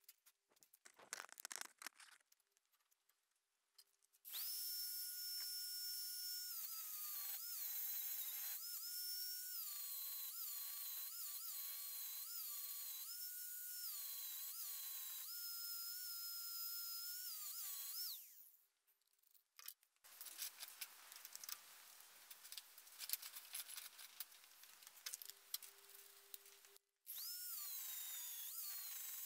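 Angle grinder cutting the rusty steel frame of a grass topper: a high whine that dips in pitch each time the disc bites into the metal and recovers as it lifts off. It starts a few seconds in and stops after the middle, leaving only scattered clicks, then starts up again near the end.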